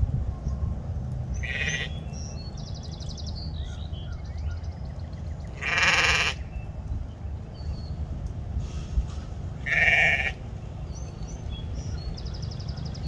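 Painted Desert sheep bleating three times: a faint bleat about a second and a half in, then two loud half-second bleats about six and ten seconds in.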